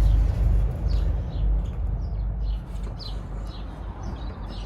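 Small birds chirping, short falling notes repeated every half second or so, over a low rumble that eases about two and a half seconds in.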